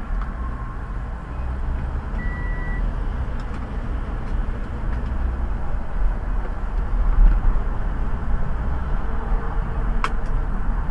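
Car engine and road noise heard from inside the cabin: a steady low rumble that grows slightly louder as the car picks up speed. There is a brief high beep about two seconds in and a sharp click near the end.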